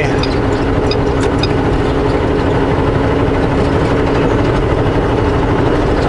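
Semi truck's diesel engine running steadily on the highway with road noise, heard from inside the cab: an even, unbroken hum.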